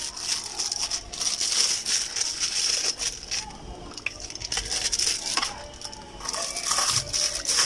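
Clear plastic bag crinkling and a cardboard phone-box insert rustling as they are handled and packed, with irregular light rattles and taps.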